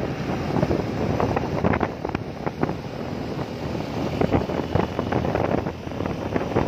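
Wind buffeting the microphone of a rider on a moving motorcycle, in uneven gusts, with the motorcycle's road noise beneath.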